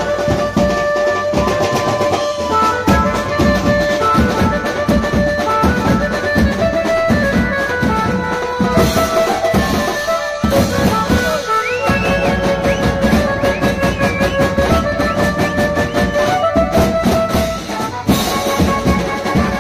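A Mumbai banjo band playing loud dance music: a melody of held notes stepping up and down over a dense, driving beat on drum kit, cymbals and steel-shelled drums.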